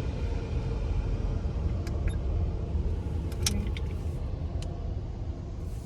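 Car running at low speed, a steady low rumble, with a few light clicks along the way.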